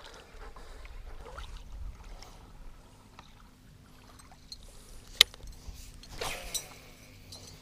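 Small waves lapping against a fishing boat's hull. About five seconds in comes a sharp click, and a second later the short whoosh of a heavy musky rod swung into a cast.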